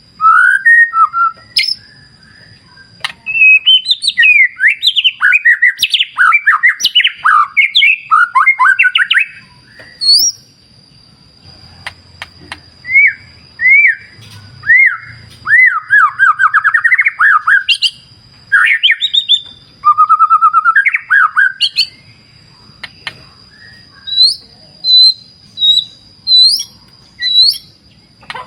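White-rumped shama singing: varied phrases of loud whistles, fast rising and falling notes and rapid chirping trills, broken by short pauses. A steady thin high tone runs underneath.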